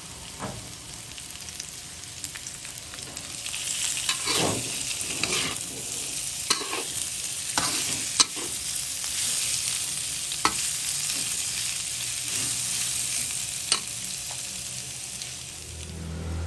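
Beef slices, onions and chilies sizzling in a wok while a metal spatula stirs and turns them. The sizzle grows louder a few seconds in, and the spatula clacks sharply against the wok several times.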